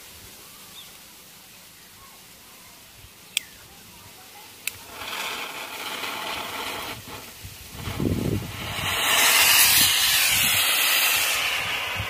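Homemade solid-fuel rocket motor with a wide nozzle burning on a test stand: after two sharp clicks, a hissing rush of sparks starts about five seconds in and grows louder toward the end. The large nozzle gives almost no thrust.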